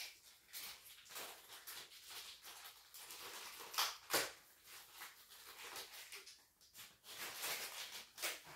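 Handling noises of a monitor and its parts being fitted: light rustling and scattered small clicks and knocks, with two sharper clicks about four seconds in.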